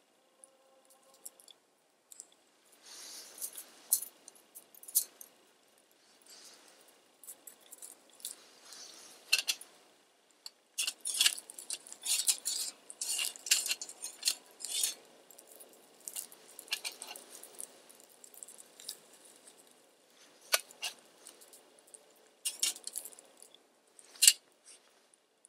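A small metal kettle clinking as it is set on a little stick fire and shifted about, with sharp clicks and snaps from the sticks and fire, thickest in the middle stretch.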